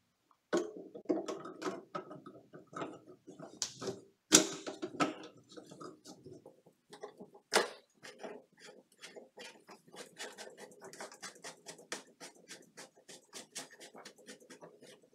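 Plastic drain pipe parts being handled and fitted: clicks and knocks of a white PVC tailpiece against the trap and garbage disposal outlet, with two sharper knocks about four seconds in and again about three seconds later. Then a quick, steady run of small clicks as a plastic slip nut is threaded on by hand.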